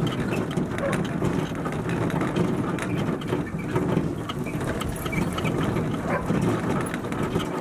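Wheeled dog cart rolling over a gravel trail behind a running sled-dog team: a steady rumbling crunch of wheels and paws on gravel, with many small clicks and rattles.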